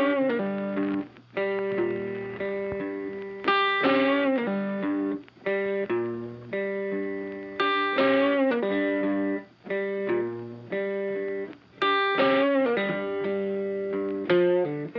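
Background music: guitar chords struck in a steady rhythm, each left to ring and fade before the next.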